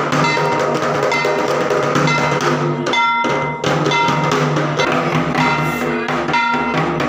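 Drums and ringing metallic percussion playing in a steady rhythm, as puja music.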